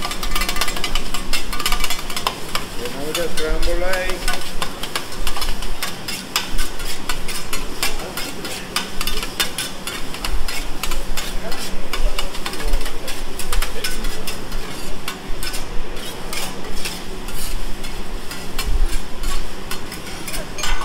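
Metal spatulas rapidly clacking and scraping on a steel teppanyaki griddle as a hibachi chef chops and turns fried rice, over the sizzle of the food frying.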